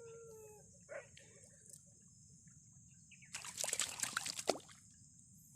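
A dog's drawn-out, falling whine fades out at the start. About halfway through comes a second and a half of splashing and sloshing in shallow flood water, the loudest sound here. A steady high-pitched drone runs underneath.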